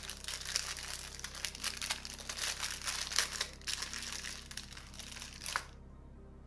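Packaging crinkling and rustling as it is handled and opened, a dense run of crackles that stops abruptly near the end.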